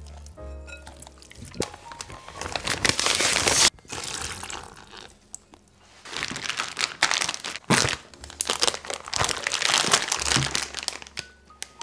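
A plastic zip-top bag crinkling as a whole marinated chicken is put into it and the bag is handled and pressed shut: one stretch of rustling about two seconds in, then a longer one from about six seconds in.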